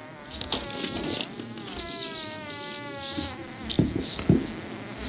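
A buzz with a slowly wavering pitch, like an insect in flight. Rustling and a few short low thumps come about three-quarters of the way through.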